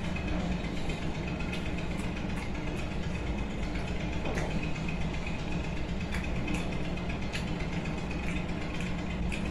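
A steady low machine hum, like a motor running, with scattered faint small clicks of eating as rice is mixed and scooped by hand from a ceramic bowl.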